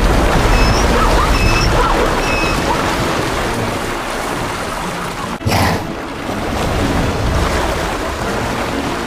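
Muddy river water churning and splashing as a crocodile grapples with a zebra, with three short high chirps in the first few seconds. A sudden loud splash about halfway through.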